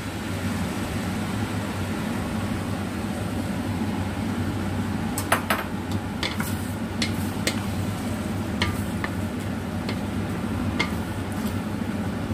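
Noodles, sausage and spring onions sizzling while they are stir-fried in a metal wok. A wooden spatula stirs and tosses them, knocking and scraping against the pan in scattered clicks.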